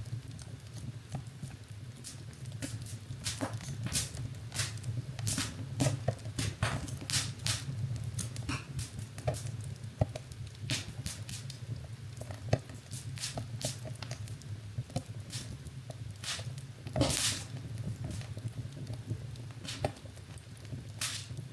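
Wood fire in a fireplace crackling, with irregular sharp pops and snaps over a steady low hum. One louder, longer pop about three-quarters of the way through.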